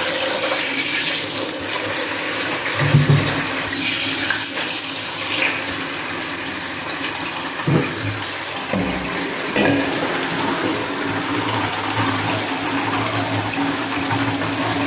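Kitchen tap running steadily into the sink during hand washing, with a few short knocks of things handled in the sink.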